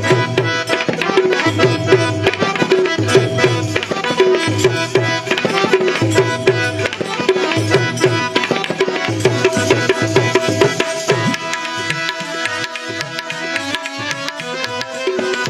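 Instrumental interlude of a Gujarati bhajan: tabla playing a quick, steady rhythm under a sustained melody instrument. The low drum strokes thin out about eleven seconds in.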